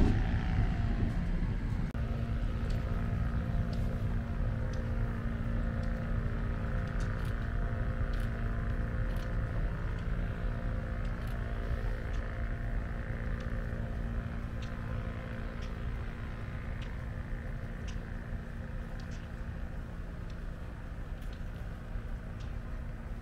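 Diesel locomotive engine running steadily with a constant hum as the train pulls away, slowly fading. Occasional faint clicks are heard.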